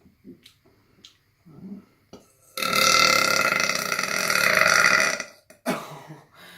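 A person's long, loud deliberate burp lasting nearly three seconds, starting a little before halfway in. It is forced up after swallowing air, and a few faint short sounds come before it.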